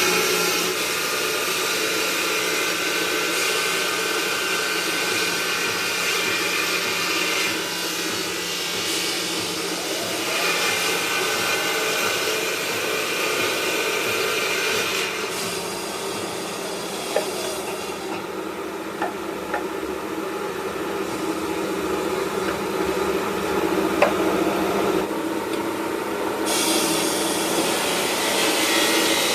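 Marble-working machinery running: a steady cutting and grinding noise that changes character several times, with a couple of sharp clicks.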